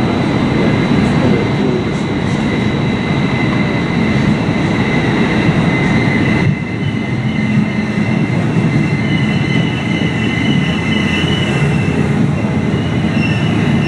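Passenger train running on the track: a steady rumble with thin high-pitched squealing tones over it, which waver in pitch in the second half. The sound changes abruptly about six and a half seconds in.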